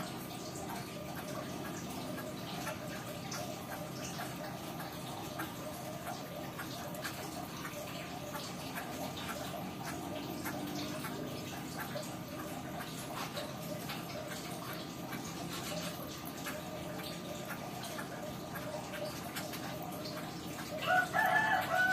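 Steady trickle of water with faint dripping and small clicks. A chicken calls loudly about a second before the end.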